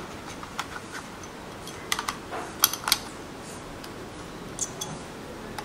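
Handling noise from a mirrorless camera body being turned over in the hands: irregular light clicks and taps, most of them bunched about two to three seconds in.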